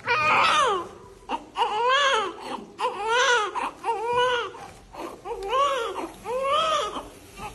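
Baby crying in a run of about six short wails, roughly one a second, each rising and then falling in pitch.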